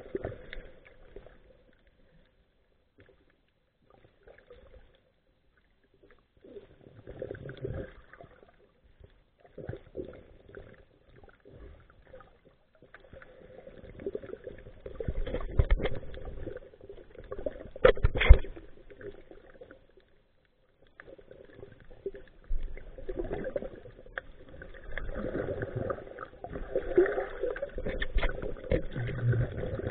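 Muffled underwater bubbling and rushing in irregular bursts a few seconds long with silent gaps between: a diver's exhaled air bubbles heard through a camera housing. A sharp knock about 18 seconds in.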